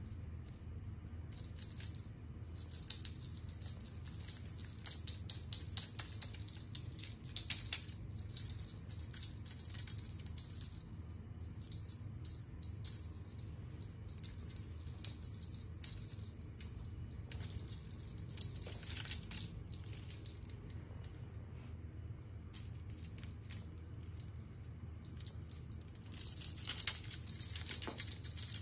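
Small jingle bell on a feather wand cat toy jingling in quick, irregular bursts as the toy is waved and batted, with a few short pauses.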